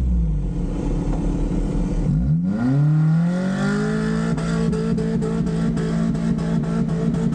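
Off-road 4x4's engine dropping nearly to idle, then revving up hard about two seconds in and holding steady at high revs. A quick ticking, about four clicks a second, runs over the second half.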